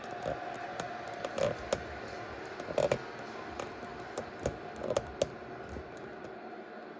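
Steady background noise from a football broadcast's stadium crowd, with a series of sharp clicks and knocks scattered through it, the loudest about three seconds in.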